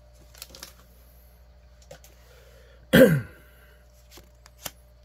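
A person clears their throat once, sharply, about three seconds in. Around it come a few soft clicks of trading cards being handled.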